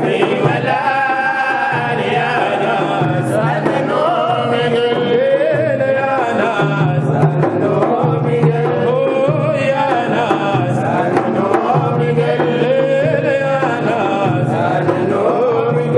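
Sudanese Sufi madih praise-song music: a wavering melodic line over a steady low accompaniment that changes in blocks every second or so.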